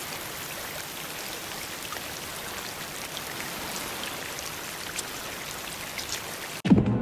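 Sprayed water falling like rain: a steady hiss with scattered drops pattering. Near the end it cuts off abruptly and louder music starts.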